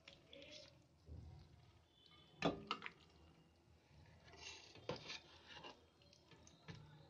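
A serving spoon scooping thick cooked vegetable curry from a metal pot into a steel bowl: faint wet squishing, with a few sharp clinks of the spoon against the metal, two close together about two and a half seconds in and another near five seconds.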